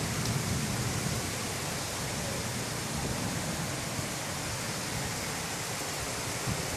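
Steady hiss of a rainstorm, rain falling with gusting wind.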